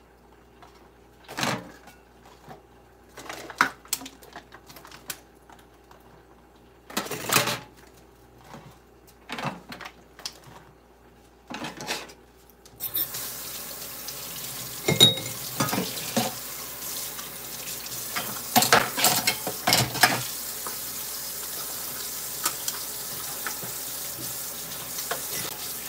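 Dishes and utensils clinking and knocking in a stainless steel sink while being washed up. A little before halfway the tap comes on and runs steadily, with more clatter over the running water.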